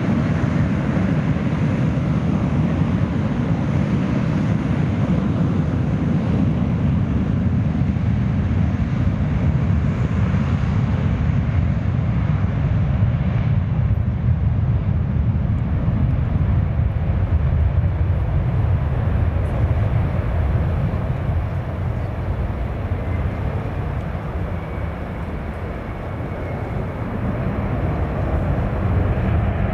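Embraer KC-390's two IAE V2500 turbofan engines at takeoff power as the jet rolls and climbs away: a steady, deep rumble. It fades a little past the middle and grows louder again near the end as the aircraft climbs back toward the listener.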